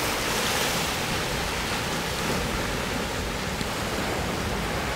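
Ocean surf washing in over a sandy, rocky shore: a steady rush of breaking and receding waves.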